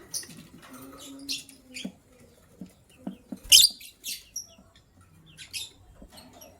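Lovebirds chirping: short, sharp high-pitched chirps scattered a second or so apart, the loudest about three and a half seconds in.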